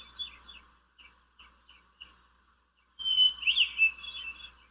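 Birdsong playing: quick chirping and twittering calls, softer and sparser in the middle and bursting back loudly about three seconds in, then cutting off abruptly.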